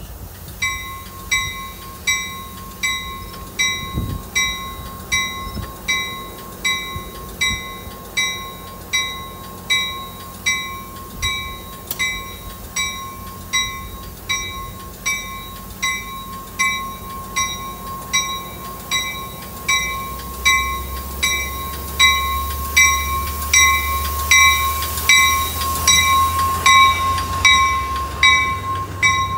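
A warning bell striking steadily, a little under twice a second, over a steady high tone, as an Amtrak California bi-level passenger train departs the platform. From about 20 seconds in, the low rumble of the train getting under way rises and grows louder.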